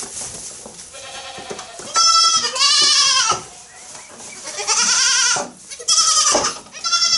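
A goat bleating repeatedly: long, wavering calls, the first about two seconds in and the last ones shorter.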